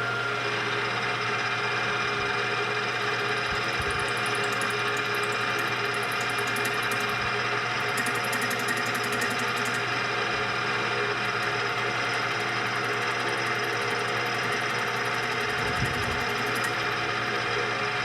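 Small metal lathe running steadily at speed, a constant motor and spindle hum, while it turns a shaft's diameter down; patches of fine high ticking come and go a few seconds in and again around eight seconds.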